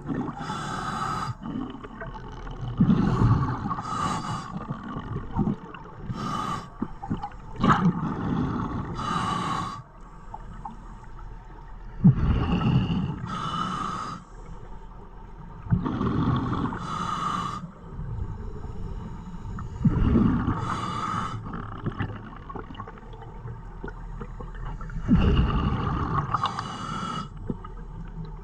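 Scuba regulator breathing heard underwater: a slow, regular cycle of bubbling exhalations and hissing inhalations, about one breath every three to four seconds.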